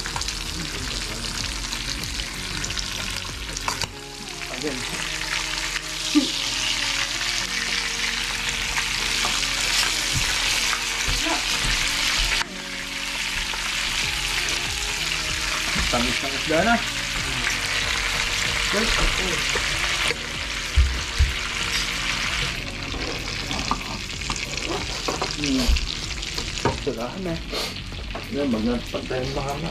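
Squid frying in oil in a pan, sizzling steadily, with a metal spoon turning it now and then and clicking against the pan.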